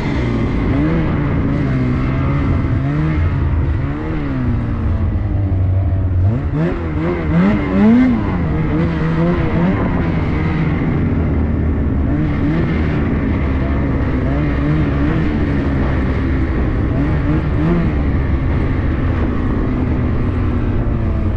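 Ski-Doo Summit X 165 Turbo snowmobile's turbocharged two-stroke 850 engine running under way through snow, its pitch rising and falling again and again as the throttle is worked, with quick sharp revs about seven seconds in. A faint steady high whine sits above the engine.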